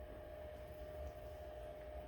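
Faint steady hum: a constant mid-pitched whine over a low rumble, with no distinct events.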